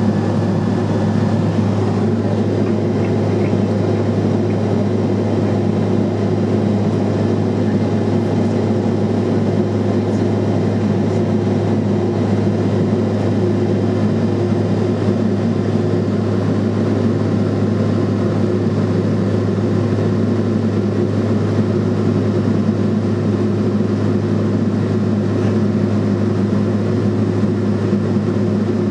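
Cabin noise of a Cessna Silver Eagle 450 in flight, its Rolls-Royce 250 turboprop engine and propeller giving a steady, unchanging drone with a deep hum and fainter higher tones above it.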